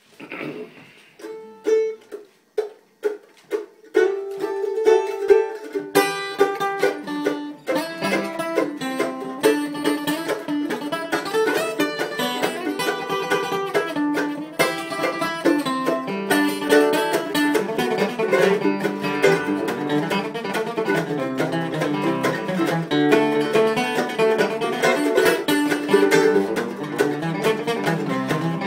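Acoustic guitar and mandolin playing an instrumental tune together. A few sparse plucked notes open it, and the full tune comes in about four seconds in.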